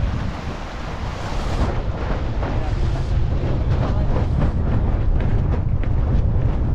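Wind buffeting the microphone over water rushing and splashing along the hull of a small racing keelboat driving through choppy water, with short splashes coming more often from about three seconds in.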